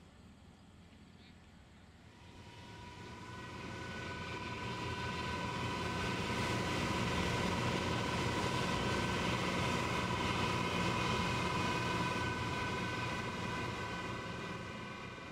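A passing engine's drone with a steady whine in it, swelling up over a few seconds, holding, then fading near the end.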